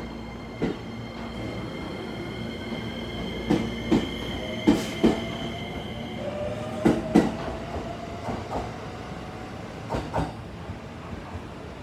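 223 series electric train pulling out, its motor whine rising slowly in pitch while its wheels clack over rail joints in pairs. A steady high tone drops away about halfway through.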